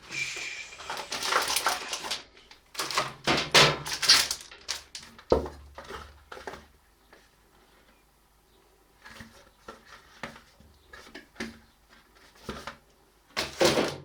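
Handling noise: irregular rustling, clicks and knocks as the tablet and its packaging are moved about on a desk, with a dull thump about five seconds in.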